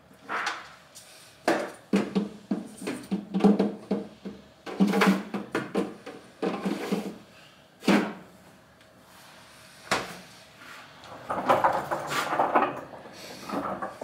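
Clattering and knocking of a small absorber minibar being handled: a shelf is fitted inside the cabinet, bottles are moved about, and the fridge is shifted on the counter. A string of short knocks and rattles, loudest around the first few seconds and near the middle.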